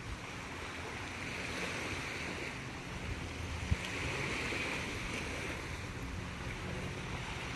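Small waves washing steadily onto a sandy beach, an even surf wash, with one short tap about halfway through.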